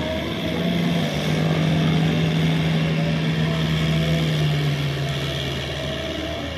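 Kubota L5018 diesel tractor engine running steadily under load as it pulls a rotary cultivator through the soil, its hum growing a little louder and then easing off near the end.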